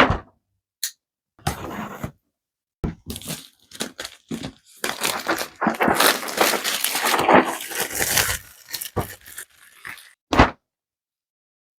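Cardboard keycap box being opened and handled: scraping and rustling of the packaging, densest in the middle, then a sharp knock near the end.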